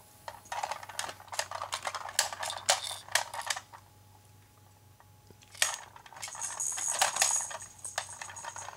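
A baby's toy rattle shaken in bursts of jingling, clicking clatter, stopping for about two seconds midway and then starting again.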